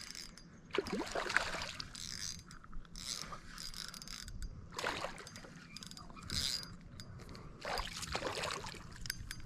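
A fishing reel being cranked in short spells while a hooked smallmouth bass splashes at the surface beside the boat, in a string of brief, irregular splashes and rattles.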